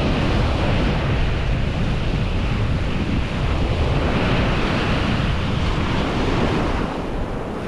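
Small surf breaking and washing up a sandy beach, the hiss of the wash swelling about halfway through. Wind buffets the microphone with a low rumble.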